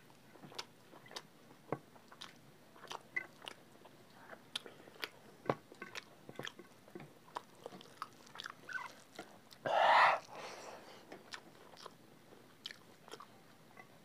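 People eating rice and curry with their hands: close-up chewing and lip-smacking, heard as many small irregular mouth clicks, with one louder, noisy burst about ten seconds in.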